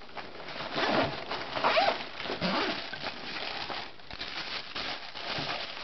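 Zipper on a nylon boot bag being pulled open, then the rustle of the bag's fabric and tissue paper being handled.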